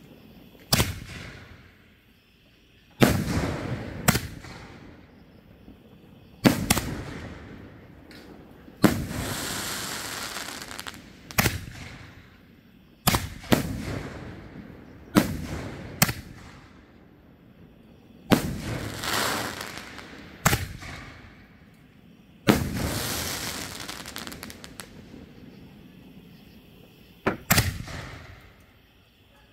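7-inch canister firework shells launching and bursting overhead: a series of about a dozen sharp booms at irregular intervals of one to three seconds, several trailed by a fading rush of sound as the stars spread.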